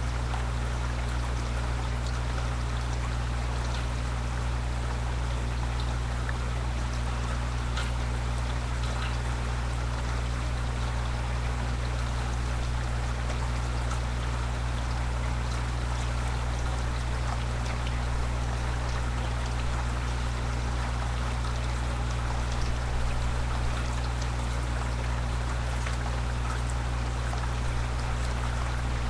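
Steady rain falling without a break, with a constant low hum underneath.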